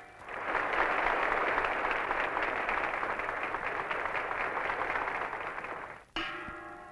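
Audience applauding, a dense even clatter of many hands for about six seconds. It breaks off, and a few held musical notes sound briefly and fade.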